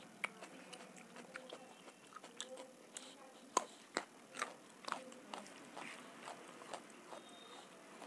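Close-miked biting and chewing of a raw carrot slice: a run of crisp crunches, loudest about three and a half seconds in.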